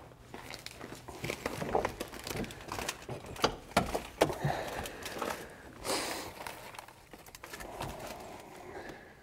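Rustling with scattered light clicks and knocks from a juvenile red-tailed hawk being handled.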